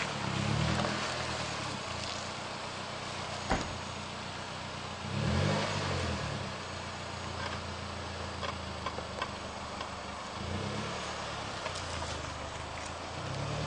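Suzuki Jimny JB43 engine running at low revs as the 4x4 crawls over a rocky ledge, with the revs rising briefly a few times. There is one sharp knock about three and a half seconds in and a few small ticks later on.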